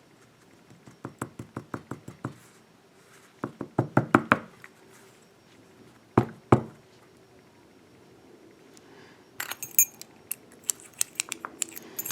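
American 5570 padlock knocked repeatedly against a hard surface to shake the key pins out: a quick run of knocks, another cluster, then two harder knocks. Light metallic clinks of small lock parts follow near the end.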